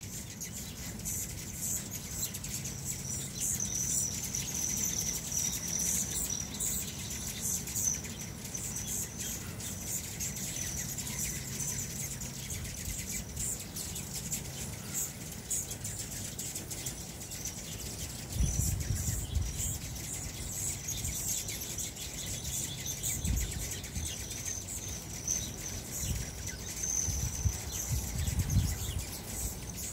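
Hummingbirds chirping around the feeders: many short, high, thin chirps throughout. A few low rumbles come in the second half.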